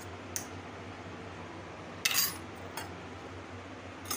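Metal kitchen bowls and utensils clinking as they are handled and set down, a few separate knocks with the loudest about two seconds in, over a low steady hum.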